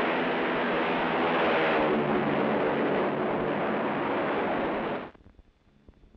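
Douglas C-47's twin radial piston engines running at takeoff power, a steady loud propeller drone that cuts off abruptly about five seconds in.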